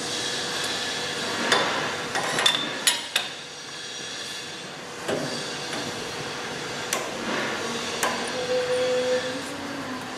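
Metal clanks and clinks of a steel roll shaft carrying plastic film being handled and seated in the side bracket of a sheeting machine: a quick run of sharp knocks in the first few seconds, a few more later, over steady workshop noise. A short steady hum sounds near the end.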